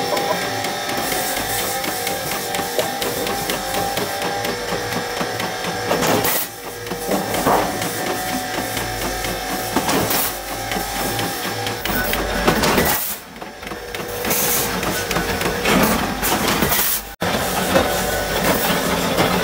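Sheet-metal cutting machines running with a steady motor hum, with metallic knocks and clanks every few seconds as steel sheet is fed through a shear, a slitter and a press.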